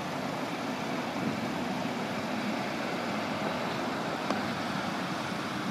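Steady outdoor background noise of passing road traffic, with a faint tick about four seconds in.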